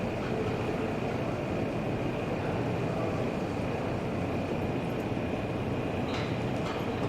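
Steady low mechanical rumble with a faint steady high whine, and a couple of faint clicks near the end.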